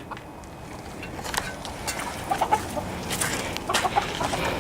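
Mother hen clucking in short, scattered calls, nervous while guarding her chicks.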